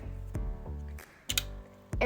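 Background music with a steady beat, and a couple of short clicks.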